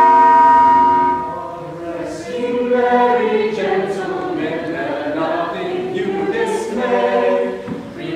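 A sustained bell-like chord fades away about a second in, then a choir sings.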